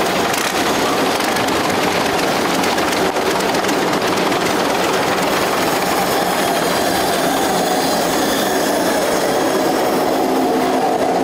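Asphalt mixing plant machinery and a wheeled tractor's diesel engine running together in a steady, loud industrial din.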